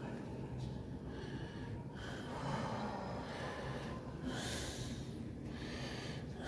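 A person breathing heavily, with long noisy breaths in and out roughly every couple of seconds.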